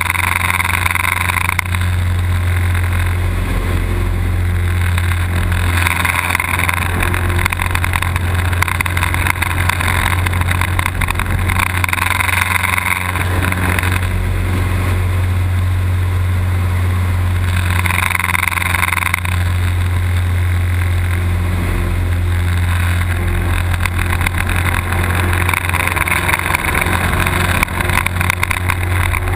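Light aerobatic plane's piston engine and propeller droning steadily, heard from inside the cockpit. A hissing rush of air swells and fades several times during the manoeuvres.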